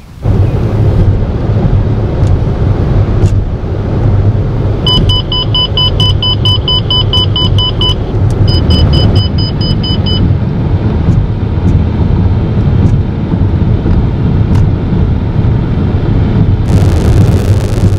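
Steady low rumble of road and engine noise inside a moving car. About five seconds in, an electronic beeper sounds rapidly, about four beeps a second for three seconds, then again for under two seconds. Near the end a hiss of wind comes in.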